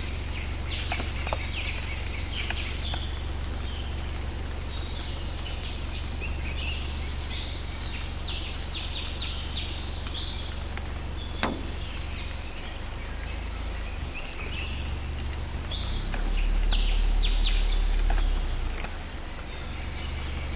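Forest ambience: a steady high insect drone and scattered short bird chirps over a constant low rumble. The rumble swells louder for about two seconds near the end, and there is one sharp click about halfway.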